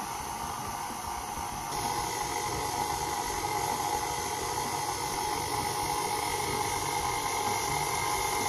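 Electric stand mixer running steadily at low speed, kneading a bread-type dough of flour, milk, eggs and butter. The motor hum gets a little louder about two seconds in.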